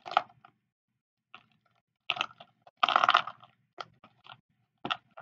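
Sticky glue-and-borax slime squishing as hands press and knead it down into a plastic tub, in irregular short bursts, the loudest about three seconds in.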